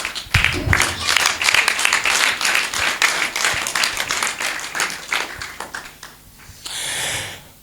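A group of people clapping and applauding, the clapping dying away about six seconds in.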